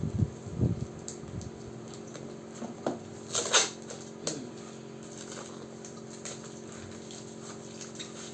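Heavily taped packaging being pulled and picked apart by hand: scattered rustles, scratches and a few soft knocks, with one louder scrape or rip about three and a half seconds in.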